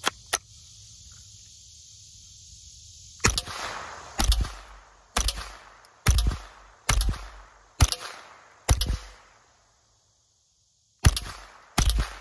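A Winchester Wildcat .22 LR semi-automatic rimfire rifle being fired repeatedly, each sharp crack trailing off in echo. There are two quick cracks at the very start, then seven shots at about one a second, and after a pause two more near the end.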